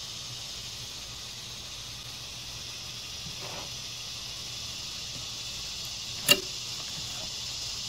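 Roasted Cornish hens being slid off a rotisserie spit, with a single sharp click about six seconds in, over a steady high hiss.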